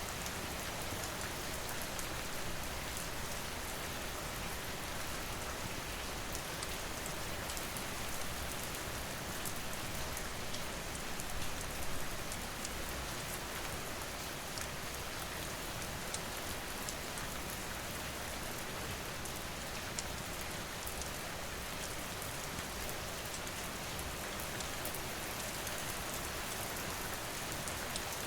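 Steady rain falling, an even hiss with many small, sharp ticks of drops scattered through it.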